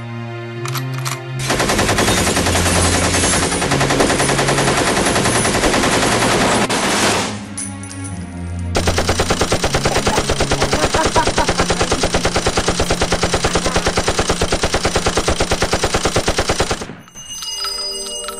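Film sound effect of machine-gun fire over a music score. A long dense burst comes first, then a short lull about seven seconds in, then a run of rapid, evenly spaced shots that cuts off suddenly near the end, leaving the music.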